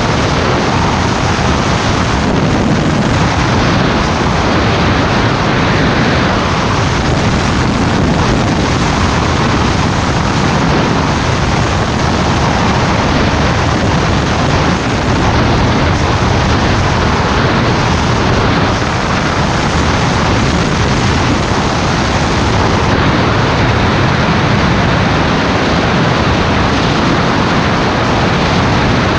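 Heavy wind noise buffeting the microphone of a fast-moving rescue motorcycle: a loud, steady rush with no siren heard.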